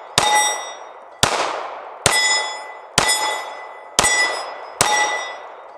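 Diamondback AM2 9mm pistol fired six times, about a second apart. Each shot is followed by the ringing of a steel plate target that was hit, fading away before the next shot.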